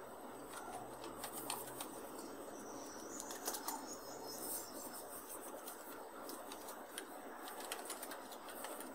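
Computer keyboard being typed on: faint, irregular key clicks over a low steady hiss.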